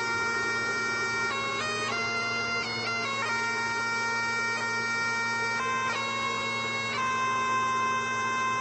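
Background music: a reedy bagpipe-like melody of held notes that step in pitch every second or so, over a steady drone.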